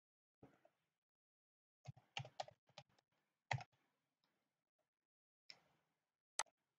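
Faint computer keyboard keystrokes as a password is typed, in short scattered clicks with a small cluster about two seconds in, then a single sharp click near the end as the login is submitted.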